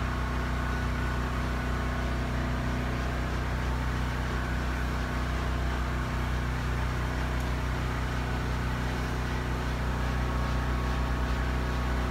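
Generator running with a steady, even low hum.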